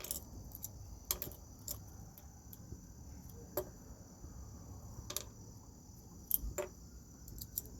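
Steady chirring of crickets, with scattered small sharp clicks and taps of the knife's metal parts and screws being handled, about a dozen in all.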